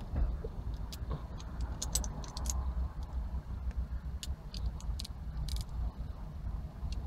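Light metal clicks and ticks of a socket, extension and driver bit being handled and fitted together, scattered irregularly over a low steady rumble.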